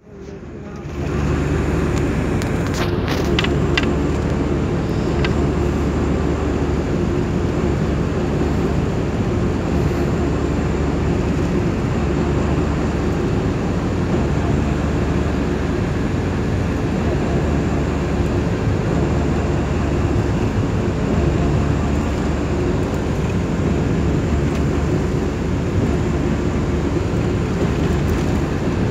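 Steady road and engine noise of a moving vehicle on a highway, heard from inside it: a constant low rumble with tyre hiss, rising in over the first second, with a few light clicks about three seconds in.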